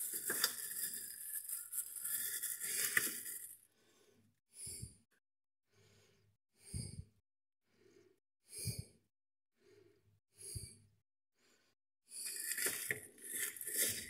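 Plastic food packaging rustling and crinkling as it is handled: a long stretch at the start and another near the end, with four short rustles and soft knocks about two seconds apart in between.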